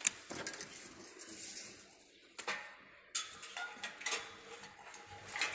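Woven steel chain link mesh being hung on a fence machine by hand, the wire clinking and rattling against the machine's metal frame, with a few sharper knocks.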